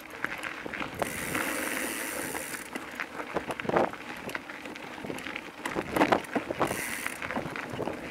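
Mountain bike rolling over a rough dirt trail, its chain and frame rattling and knocking over bumps. The rear hub's freewheel buzzes while coasting, about a second in for a second and a half and again briefly near the end.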